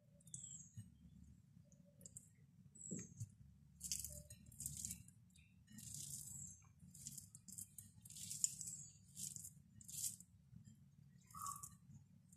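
Fingers mixing rice with dal and vegetable curry on a plate: soft, irregular squishing and scraping strokes about once a second, over a faint steady low hum.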